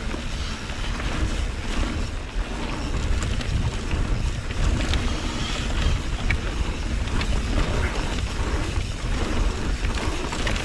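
Wind rushing over an action camera's microphone on a mountain-bike descent, with scattered clicks and rattles from the bike and tyres on the trail.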